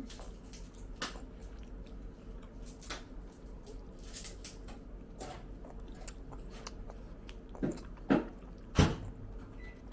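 A person chewing and eating, with many small wet mouth clicks and crunches. Three louder sharp clicks come near the end.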